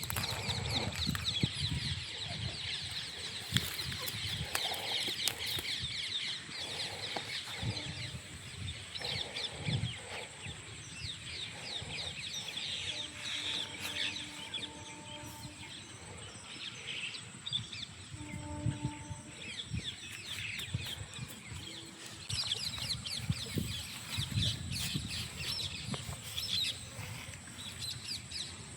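A chorus of small birds chirping and twittering steadily, with low knocks and rustles close by. Two short, low pitched tones sound about halfway through.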